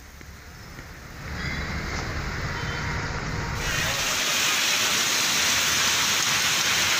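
Low rumble of traffic on a rain-soaked road. About three and a half seconds in it cuts to the loud, steady rush of floodwater pouring through a street.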